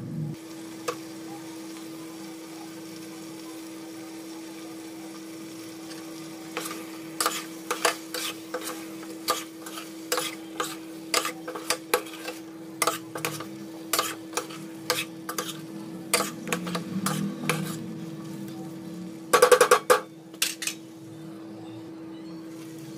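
A steel spoon stirring curry in a stainless steel pan, scraping and clinking irregularly against the metal, over a steady hum. Near the end a steel lid clangs onto the pan with a short metallic ring.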